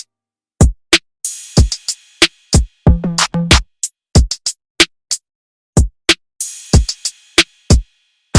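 Background music: a drum-machine beat without vocals, with sharp hits separated by short silences and a cymbal wash twice.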